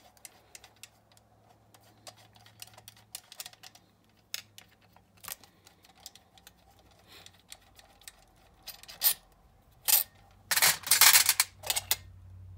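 Screwdriver clicking and scraping on the air horn hold-down screws of a Quadrajet four-barrel carburetor, then, from about nine seconds in, several sharp metallic clatters as the removed screws are dropped into an enamel metal parts tray.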